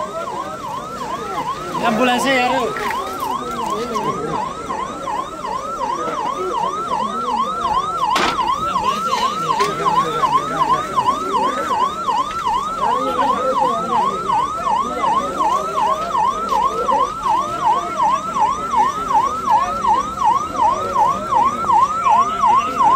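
A siren sounding in a fast repeating up-and-down sweep, about two and a half cycles a second, with the voices of a crowd underneath.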